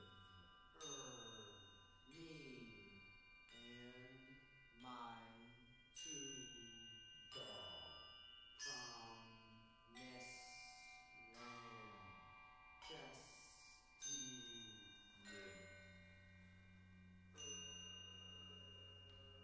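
Percussion ensemble playing struck metal mallet instruments: a strike about every second and a half, each leaving long ringing high tones, with lower tones that slide down in pitch after each strike. A steady low hum comes in near the end.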